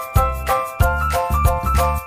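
Upbeat background music with a steady beat, bright pitched notes over bass thumps about three times a second.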